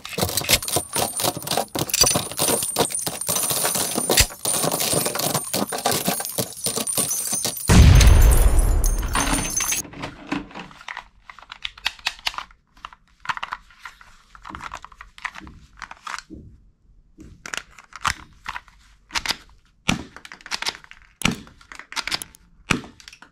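Dense, rapid crackling and clicking for about the first ten seconds, with a deep boom about eight seconds in, after which everything cuts off suddenly. Then sparse clicks, knocks and clatter of toy pistols being picked up and handled among a box of toy guns.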